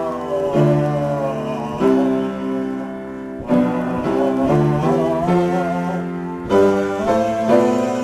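Improvised piano music: held chords struck afresh every one to two seconds, with a wavering melody line above them.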